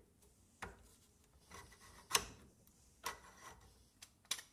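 A few faint, light knocks and clicks, the loudest about two seconds in, as a soft annealed copper pipe shell is turned and slid by hand on a round buck held in a vise.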